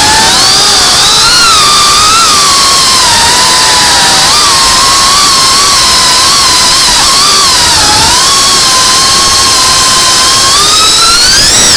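GEPRC Cinelog 35 V2 cinewhoop's brushless motors whining, heard from on board the drone, the pitch wavering up and down with the throttle and climbing sharply near the end, over a steady rush of propeller noise.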